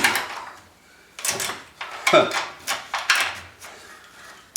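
Heavy metal parts of an F150 front axle being shifted under a truck frame: a string of scrapes and clunks, with a short falling creak about two seconds in.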